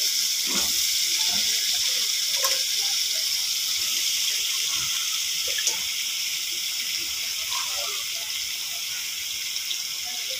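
Food sizzling in a cooking pan: a steady hiss with faint scattered crackles, easing off slowly.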